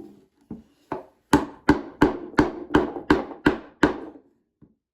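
A hammer tapping on a wooden toolbox board about ten times, two light blows then a steady run at roughly three a second, working to free a stuck fastener.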